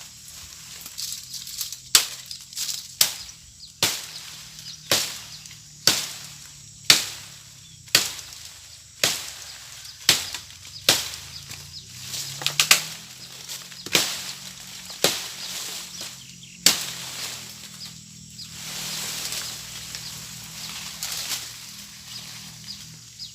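A blade chopping into a broken mango branch, steady strokes about once a second, followed near the end by a longer rustle of leaves.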